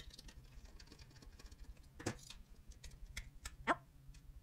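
Scattered light clicks and taps of small parts and tools handled on a tabletop as a satellite radio antenna is taken apart. There is a sharper click about two seconds in and a few more near the end.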